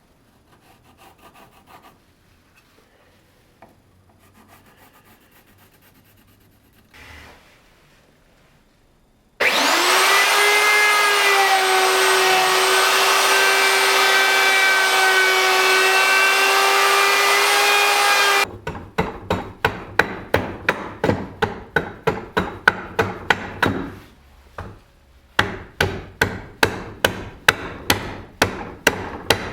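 About nine seconds in, a power tool spins up with a brief rise in pitch and runs at a steady high hum for about nine seconds, then stops. Right after, a hand tool works wood in rapid back-and-forth strokes, about three to four a second, with one short pause.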